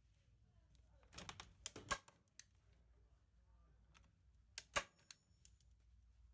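A series of sharp mechanical clicks: a quick cluster about a second in and a loud pair near the five-second mark, with a few lighter clicks between.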